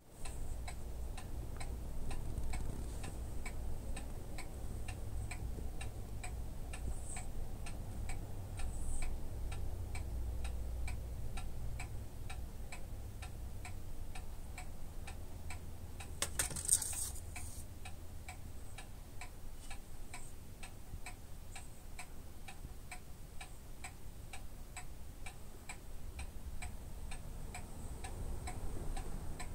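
A clock ticking steadily, with a low rumble beneath it in the first half and a brief rustle a little past halfway.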